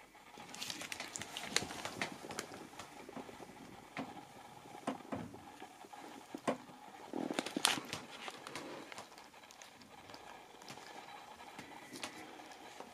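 A husky's paws shuffling on a carpet, its claws clicking, with scattered light taps and rustles and a few louder knocks.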